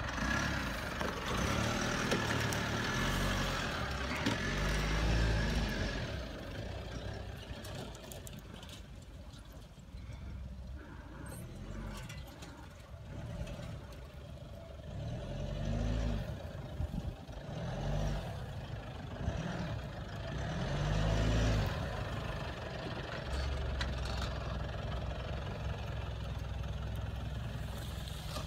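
Mitsubishi Pajero Sport SUV engine revving up and falling back again and again as it crawls over steep grassy mounds, with several rising-and-falling swells in pitch.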